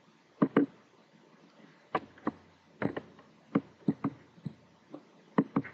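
Computer mouse clicking: about a dozen short, sharp clicks spread over the few seconds, many of them in quick pairs like press-and-release or double-clicks.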